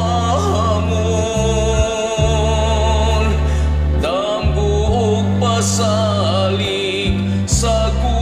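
A man singing a slow song with long, wavering held notes over a karaoke backing track whose bass notes change every second or two.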